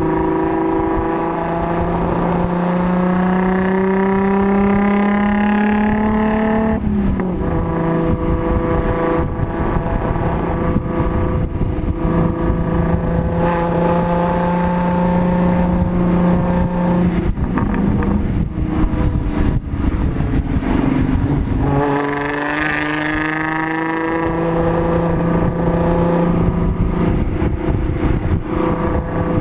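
Audi S4's supercharged V6 with an AWE Touring exhaust, heard from inside the cabin, pulling under throttle with the pitch climbing, then falling sharply at an upshift about seven seconds in. It then runs at fairly steady revs; about 22 seconds in the revs dip briefly and climb again.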